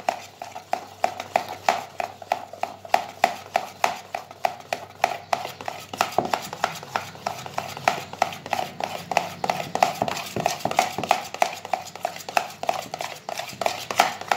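A hand beating wet, sticky booza dough (yeast starter mixed into cooked flour dough) in a bowl, with rhythmic wet slaps at about three a second. The dough is being beaten fast until it is smooth and free of lumps, one even mass.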